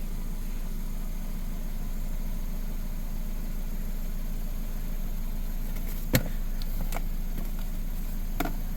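2006 Nissan Sentra's 1.8 L inline-four engine idling steadily while still warming up, short of the temperature at which the thermostat opens. A sharp click sounds about six seconds in, and a fainter one near the end.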